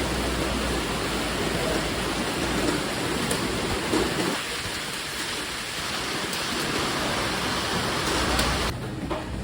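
Heavy rain falling, a steady hiss with a few sharp drip ticks. The sound changes about four and a half seconds in and turns quieter, with less hiss, shortly before the end.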